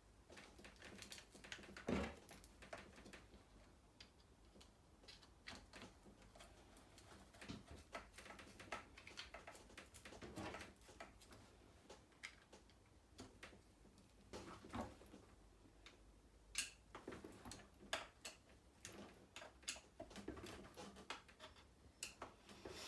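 Faint, scattered small clicks and taps of a screwdriver and small parts being worked on an RC truck's plastic front suspension, with slightly louder knocks about two seconds in and around ten and sixteen seconds.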